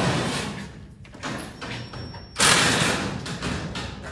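Bangs and rattling of sheet-metal tin siding being pulled off a building's steel frame: one loud hit right at the start and a bigger one about two and a half seconds in, each trailing off over a second or so, with smaller knocks between.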